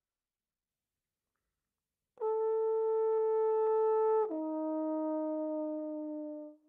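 Trombone playing two long held notes, the second lower than the first. It comes in about two seconds in, holds each note for about two seconds, and fades near the end.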